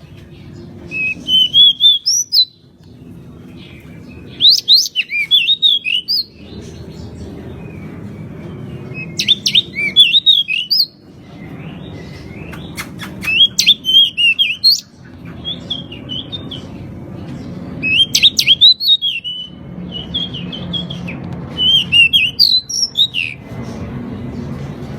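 Pied bushchat singing vigorously in short phrases of quick, chirpy whistled notes, a phrase every two to four seconds, over a steady low background rumble.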